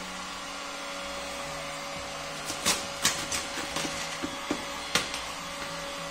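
Steady running hum of a heat gun, with sharp crackles of vinyl wrap film being stretched and pulled over a car bumper: a cluster from about two and a half seconds in, and one more about a second before the end.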